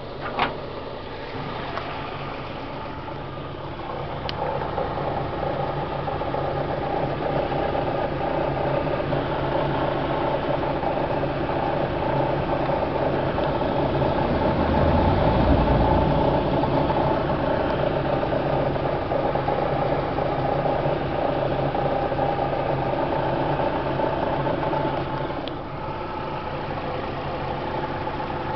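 Daewoo Lanos engine running near idle, carrying the extraneous noise that the owner is trying to show. It gets louder about four seconds in, swells with a deeper rumble around the middle, and eases back a few seconds before the end.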